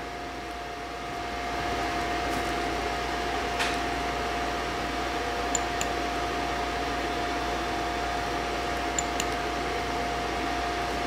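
Steady fan-like mechanical hum with a constant high whine, growing a little louder about a second and a half in, with a few faint clicks, two of them in quick pairs.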